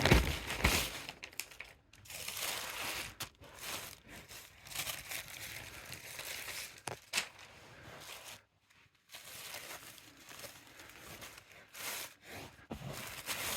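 Packaging being handled and opened to unwrap a football shirt: irregular crinkling and rustling in stops and starts, with a brief sharp crackle about seven seconds in.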